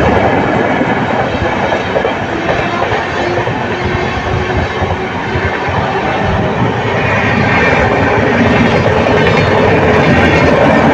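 A long passenger express of LHB coaches passing close at speed: a loud, steady rush of wheels on the rails that runs unbroken as the coaches go by.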